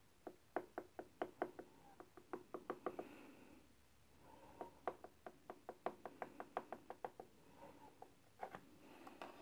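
Faint, quick knocks from a thin kitchen utensil jabbing down into a cream-covered cake and tapping the board beneath. They come in two runs of about four or five a second, then a few more near the end.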